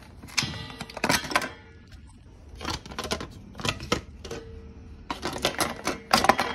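Loose plastic and metal parts of a Razor electric dirt bike rattling and knocking in short clattery bursts, about six of them, as the bike is handled. The owner says the bike is falling apart.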